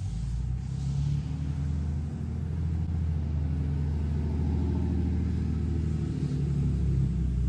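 A motor running with a steady low rumble, which starts suddenly and holds at an even pitch.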